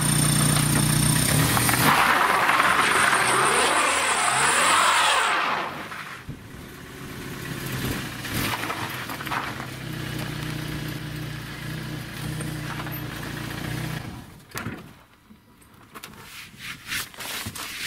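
Small car on studded winter tyres driving on ice: the engine revs up and down while the tyres hiss loudly over the icy surface for the first five seconds or so. The engine then runs steadily and more quietly. Near the end there are a few scattered crunching clicks.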